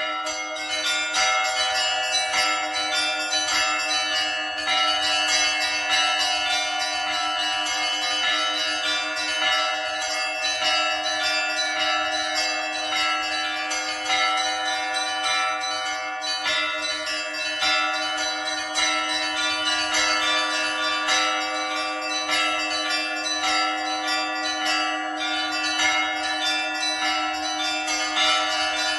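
Russian Orthodox church bells rung by a bell-ringer in a continuous peal (zvon): quick, rhythmic strikes on the smaller bells ring over the sustained tone of a larger bell.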